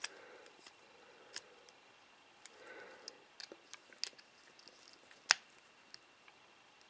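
Faint, scattered small clicks and taps of fingers handling a Hubsan X4 H107L mini quadcopter's plastic frame and wires, with one sharper click a little past the middle.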